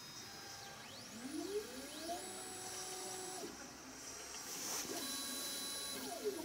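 Formlabs Form 2 resin 3D printer mid-print, its stepper motors whining as they lift the build platform out of the resin tank and lower it back in between layers. The whine rises in pitch about a second in, holds, then stops, and a falling whine comes near the end.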